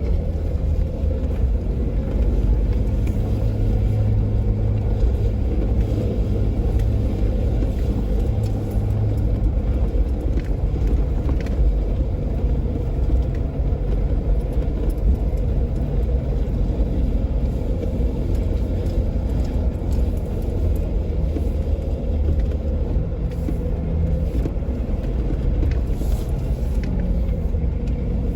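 Jeep Wrangler JK driving on a dirt trail: a steady low engine rumble whose pitch shifts a little now and then, with a few faint ticks over it.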